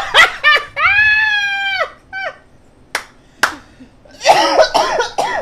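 A child's voice cries out in one long, high-pitched wordless exclamation about a second in. Two sharp smacks follow, then excited voices near the end.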